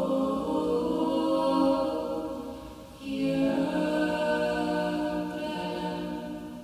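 Three women's voices singing a Hungarian folksong a cappella in close harmony. One chord is held, breaks off about three seconds in, and a second long chord follows that fades away near the end, closing the song.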